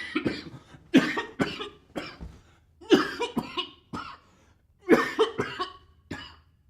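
A man coughing hard, in fits of two or three harsh coughs about every two seconds.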